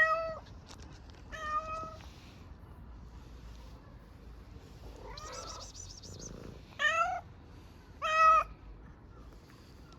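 A hungry stray cat meowing for food: several short meows spaced a second or more apart, the loudest at the start and two in quick succession near the end.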